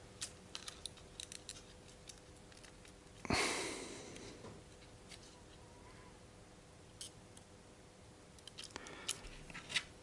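Light clicks and taps of assembly parts being handled and pressed into their seats, with one louder knock about a third of the way in.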